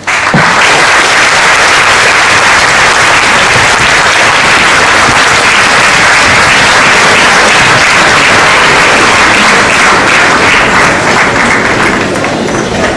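A large theatre audience applauding: dense, steady clapping from many hands that starts suddenly and eases a little near the end.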